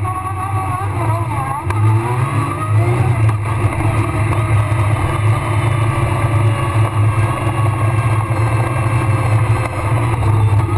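Rally car engine driven hard, heard from inside the cabin. Its note wavers up and down in the first few seconds, then holds steady.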